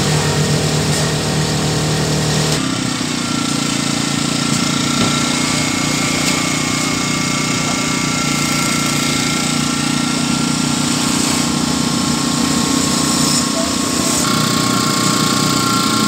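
Matsumoto MGG2000i inverter generator's 79cc four-stroke OHV engine running steadily. About two and a half seconds in, its pitch and tone shift higher and then hold steady.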